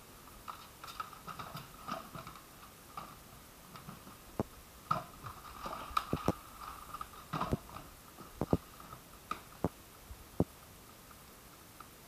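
Hard plastic parts of a Kärcher WD1 wet-and-dry vacuum being handled with the motor off: the head being lifted off the drum and its latch clip worked. Scattered sharp knocks and clicks, several louder ones in the second half, with light rubbing in between.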